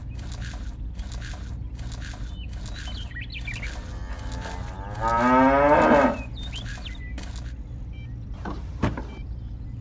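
A cow moos once, loudly, for about a second, roughly halfway through, over a steady low hum and a regular ticking.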